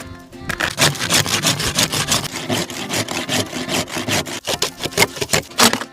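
Hand saw cutting through a side of beef and its rib bone to free a tomahawk steak, in quick back-and-forth strokes of about four or five a second.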